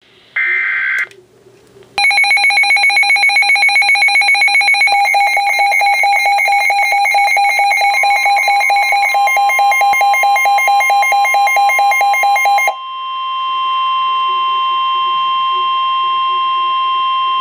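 Emergency Alert System warning tones for a severe thunderstorm warning: a short electronic beep, then about ten seconds of rapidly pulsing electronic alarm tones that change pattern twice, then a steady single-pitched tone near 1 kHz, the weather-radio warning alarm tone.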